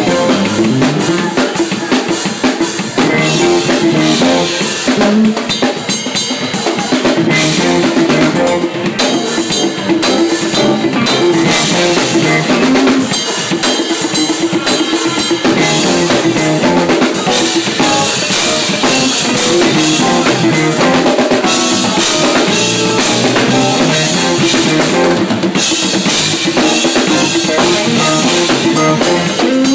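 Drum kit played live and close up: a busy groove of kick drum, snare and cymbal hits, with the band's pitched notes underneath.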